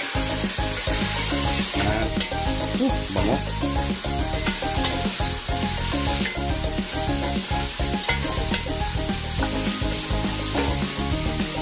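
Beef ribs sizzling in a pot after soy sauce has been added, stirred with a wooden spoon that scrapes and knocks against the pot now and then. Background music with a steady beat plays underneath.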